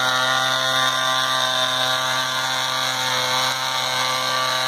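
Small model combustion engine aboard a homemade live-diesel garden-railway locomotive, running steadily as the locomotive travels around the track. It gives one even drone that holds the same pitch throughout.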